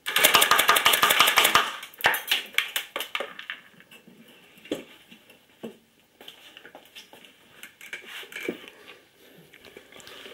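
Homemade compressed-air airsoft machine gun firing 6 mm BBs at 12 bar: a loud, rapid burst of shots for about two seconds, then a sparser, fading stutter. Scattered light clicks and clatter follow.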